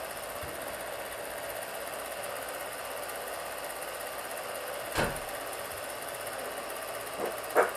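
Cine film projector running with a steady mechanical clatter, with a short click about five seconds in and another near the end.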